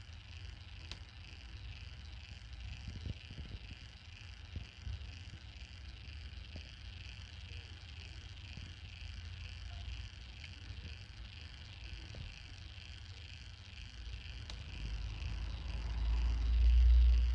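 Microwave oven turntable motor running through its reduction gears: a steady low hum with a faint higher whir and a few small ticks. Near the end a loud low rumble swells up and cuts off.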